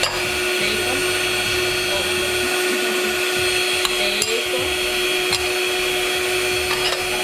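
Electric mixer running steadily, whipping egg whites toward stiff peaks. A few light clicks of a metal spoon and bowl against the pan.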